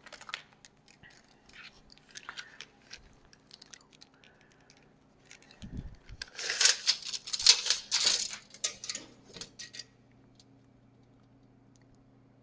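Handling noises: scattered light clicks and taps, then a thump about six seconds in and a few seconds of loud rustling and crinkling. After that it goes quiet apart from a faint steady low hum.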